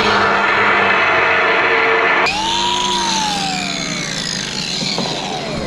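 Angle grinder grinding into wood for about two seconds, then let off; its motor winds down with a slowly falling whine.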